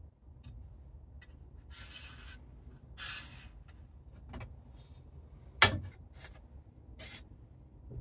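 Workbench handling noises: an aluminium angle being shifted and slid across a steel table saw blade, with several short scraping rubs, a few light knocks and one sharp metallic clunk a little past halfway as it is set down.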